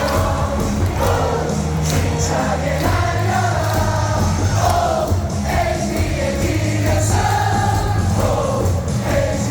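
Baseball stadium crowd singing a cheer song together over loudspeaker music with a steady beat.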